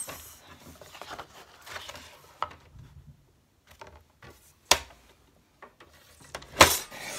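Card stock being slid and squared against the rail of a paper trimmer, then the trimmer's sliding blade run along the cut: soft rubbing and scraping with a few sharp clacks, the loudest near the end.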